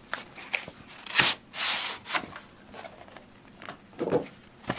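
Cardboard packaging being handled: an inner brown cardboard box is slid out of a thin printed outer box. There are several short scrapes and taps, and a longer sliding rub about one and a half seconds in.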